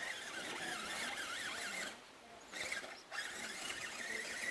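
Electric motor and drivetrain of a scale RC crawler truck whining, the pitch wavering up and down with the throttle. It cuts out briefly about two seconds in and again just after three seconds.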